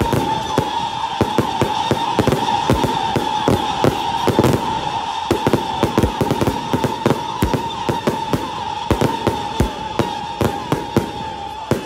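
Daytime aerial fireworks: a dense, irregular run of cracks and bangs from crackling shells bursting overhead, over a steady high tone.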